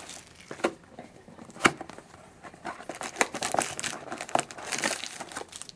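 A sealed 2011-12 Titanium hockey card box being torn open by hand and its packs pulled out: crinkling and tearing of wrap and cardboard, with scattered sharp clicks, the loudest about one and a half seconds in.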